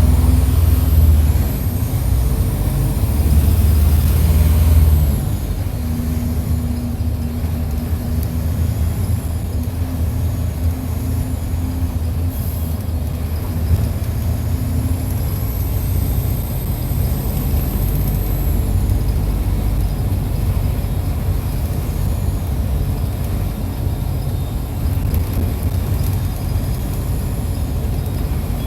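Mercedes-Benz OF-1722 bus's diesel engine heard up close while the bus is driven, working hard for about the first five seconds, then easing off and running steadily under way. A faint high whine rises and falls twice above the engine.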